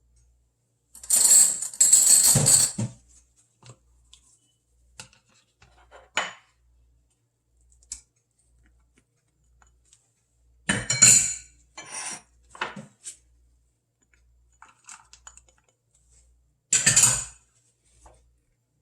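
Kitchen utensils and dishes clattering in a few short bursts, the loudest about a second in and again around eleven seconds in, with light clicks in between.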